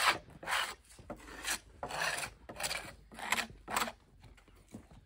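Hand tool scraping along a wooden form board in repeated rough strokes, about two a second.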